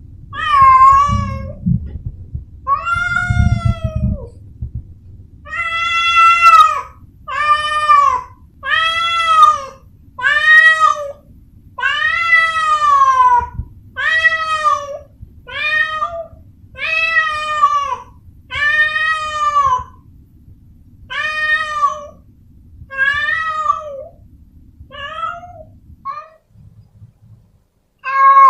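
A calico cat meowing over and over, roughly one drawn-out meow a second, each rising then falling in pitch. The calls grow shorter and weaker toward the end, with a pause of about two seconds before a last meow.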